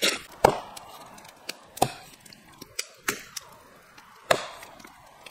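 Wood being chopped: about half a dozen sharp knocks of a tool striking wood at uneven intervals, the loudest about half a second in.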